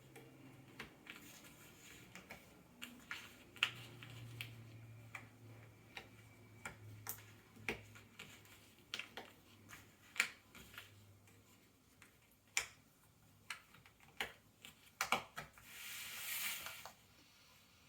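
Cardboard Ravensburger jigsaw puzzle pieces being handled and pressed into place: light, irregular clicks and taps, with a short rustle lasting about a second and a half near the end.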